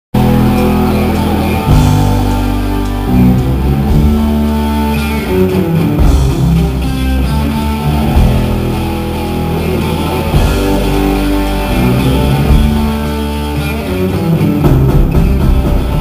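Rock band playing an instrumental passage at a sound check: electric guitar, bass guitar and drum kit, amplified through the stage system. The playing is loud and continuous, with a heavy low end.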